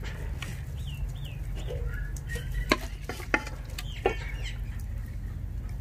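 Small birds chirping, with three sharp knocks about half a second apart near the middle, typical of a metal spoon striking a cooking pot while the rice is ladled in. A steady low hum runs underneath.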